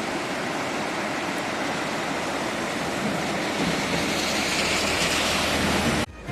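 Floodwater rushing in a loud, steady roar of moving water, cut off abruptly about six seconds in.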